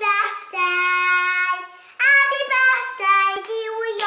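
Young girls singing a short tune, with a long held note about half a second in and a run of shorter notes in the second half.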